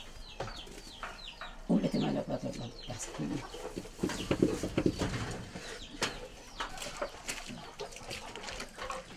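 Chickens: short high chirps that fall in pitch, and louder, lower bouts of rapid pulses about two seconds in and again around four to five seconds in.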